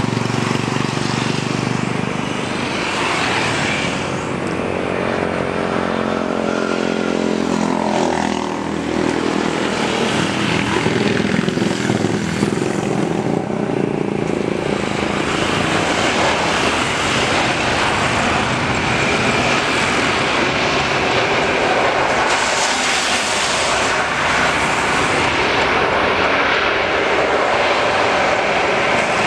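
Jet engines of a Batik Air Airbus A320-214 (CFM56 turbofans) landing and rolling out on the runway. A stack of engine tones slides downward in pitch as it passes, then gives way to a broad, steady roar.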